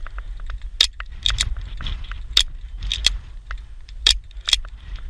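Airsoft gunfire from a pump-action hi-capa gas pistol being racked and fired: about eight sharp clicks at irregular intervals, some in quick pairs, over a low rumble.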